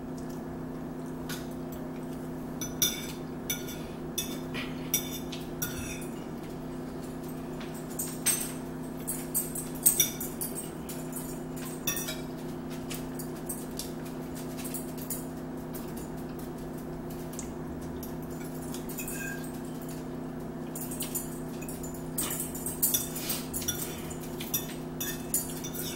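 Metal forks clinking and scraping on plates as two people eat, a scatter of short sharp clicks in a few clusters over a steady low hum.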